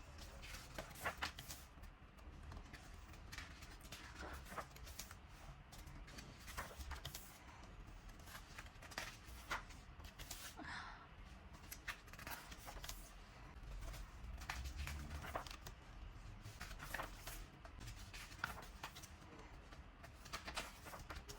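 Hands handling merchandise packaging and paper items: scattered light taps, clicks and soft rustles.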